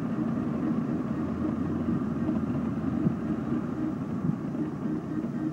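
Car driving at speed, engine and road noise heard from inside the cabin as a steady low drone.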